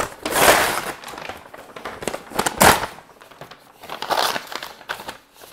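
Large brown paper takeout bag crinkling and rustling as it is torn open and flattened, in a few loud bursts about a second or two apart with quieter rustling between.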